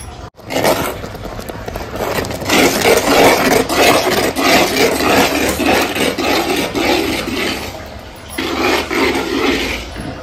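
Metal ladle stirring and scraping a thick, bubbling mixture of ground green gram in jaggery syrup in a clay pot, a dense crackling, scraping noise as the moong dal halwa thickens toward the halwa stage. The stirring pauses briefly a little before the end, then starts again.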